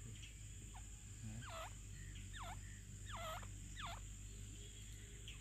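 Grey francolin calling: a faint series of short whistled notes, each dipping sharply in pitch and rising again, about one a second.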